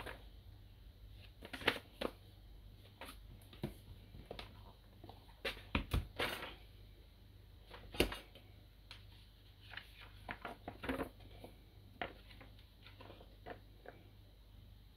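Glossy magazine pages being handled and turned in a ring binder: irregular paper rustling with scattered clicks and taps, the sharpest about eight seconds in.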